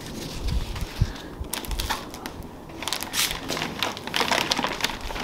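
Clear plastic wrapping crinkling and crackling as it is handled, with a few low bumps about a second in.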